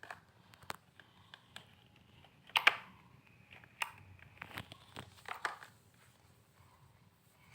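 Clay slime being stirred and worked in a container after water has been added: irregular clicks of the spoon and sticky squishing, loudest about two and a half seconds in.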